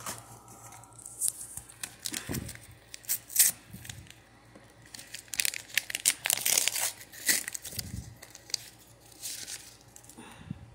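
A paper McDonald's Pokemon card pack being torn open and crumpled, in irregular rips and rustles that are loudest about three and a half seconds in and again from about five and a half to seven and a half seconds.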